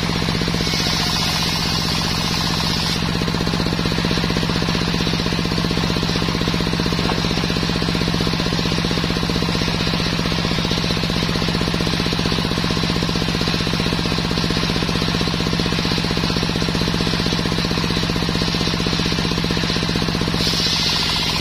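Belt-driven circular saw blade of a small table sawmill, powered by a stationary engine that runs steadily with a fast, even knocking beat. The blade cuts sengon wood, adding a bright hiss, for about the first three seconds and again just before the end, and spins free in between.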